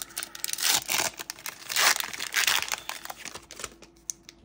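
Foil wrapper of a Pokémon Sun & Moon booster pack being torn open and crinkled by hand, in two loud crackling bursts about one and two seconds in, then fading to light rustling.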